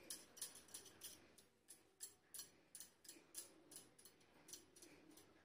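Bangles clinking faintly in an even run of light clicks, about three a second, as the hands rub and roll soft chenna into balls between the palms.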